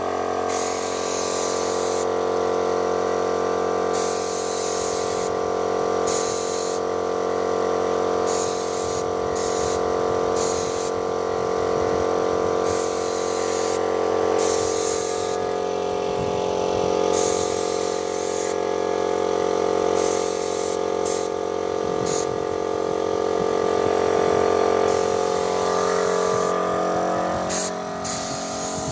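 Paint sprayer in use: its motor hums steadily while the spray gun hisses in a dozen or so short bursts of half a second to two seconds as the paint is sprayed on.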